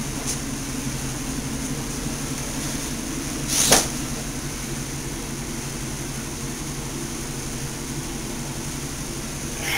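Steady low hum and hiss of room or recorder noise, with a brief swish of cloth about three and a half seconds in as a shirt is shaken out, and a softer rustle near the end.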